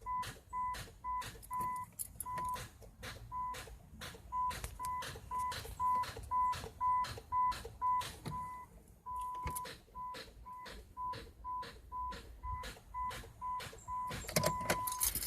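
A 2008 Chrysler Town & Country's dash chime beeps rapidly at one steady pitch while sharp clicks repeat about three times a second as the key is turned and the engine does not crank. The owner puts the clicking down to a weak battery or a starter that engages but does not turn over.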